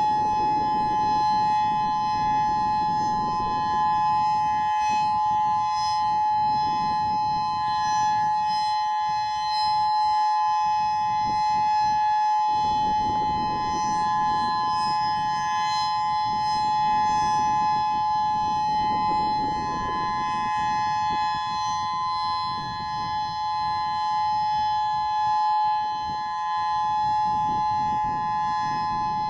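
Federal Signal Modulator 8032B electronic outdoor warning siren sounding its full alert: a loud, steady tone made of two close pitches sounding together, with no rise and fall.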